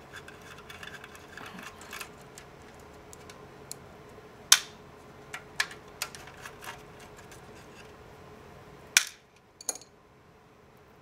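Screwdriver and small metal parts clicking and clinking while the corner screws of a circuit board in a metal chassis are undone, with light handling scrapes and a few sharp clacks, the loudest about four and a half seconds in and again near nine seconds.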